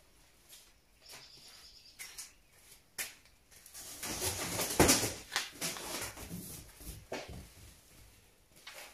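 Cardboard boxes and artificial Christmas tree branches being handled: scattered knocks and rustling, with a louder stretch of rustling and knocks about four to six seconds in.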